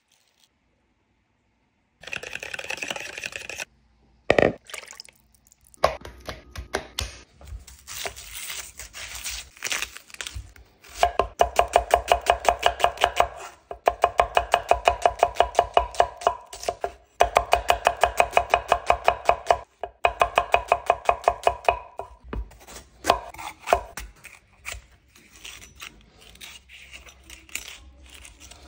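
A chef's knife chopping an onion on a hardwood cutting board, in long runs of rapid, even strokes at about five a second. Slower, scattered cuts follow near the end as a bell pepper is sliced.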